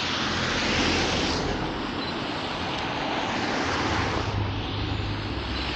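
Road traffic passing: a hiss of tyres on the road that swells and fades a few times, over a low engine hum.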